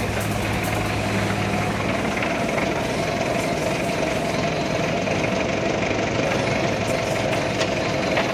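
Heli diesel forklift engine idling steadily, with a steady whine above the engine note.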